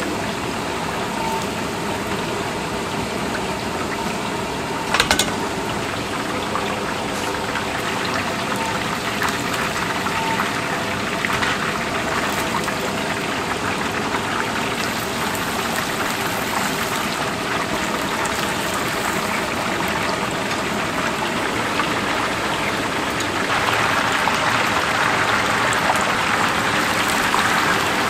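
Battered whole chickens deep-frying in a large cauldron of hot oil: a steady bubbling sizzle, with a sharp click about five seconds in. The sizzle grows louder and harsher in the last few seconds.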